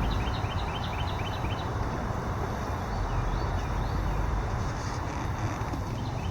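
Steady low rumble of town traffic background noise, with a bird's rapid run of short high chirps, about five a second, in the first two seconds and again briefly near the end.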